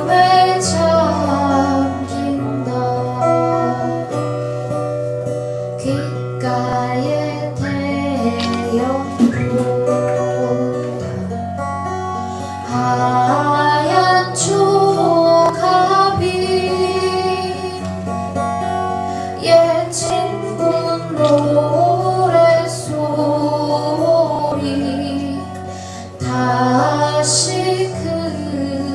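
A slow Korean ballad performed live: a woman singing over guitar accompaniment with a steady low bass line.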